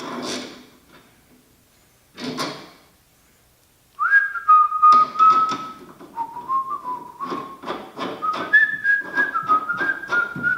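A man whistling a tune, a single clear note stepping up and down in pitch, starting about four seconds in, over rapid clicks and knocks of tools and parts being handled. Two short knocks come before the whistling begins.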